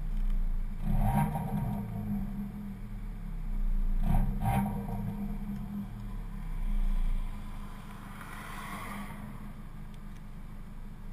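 Dodge Dart GT's 2.4-litre MultiAir four-cylinder, breathing through its stock exhaust, revving in short blips about a second in and again around four seconds, with a few sharp pops among the revs. There is a smaller rise near seven seconds, and then it settles.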